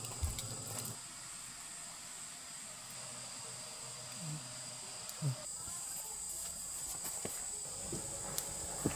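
Crickets trilling steadily at a high pitch, with a few soft knocks scattered through.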